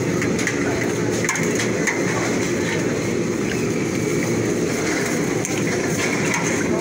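A steady low rumble of background din, with a few light knocks and scrapes of a steel ladle moving through a large pot of curry.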